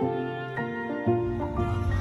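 Slow background music of held, sustained notes. About a second in, a low steady rumble comes in beneath it.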